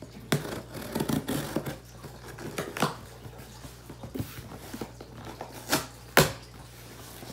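Cardboard shipping box being cut open with scissors and its flaps pulled and handled: irregular scrapes, rustles and clicks, with a sharp knock about six seconds in as the loudest.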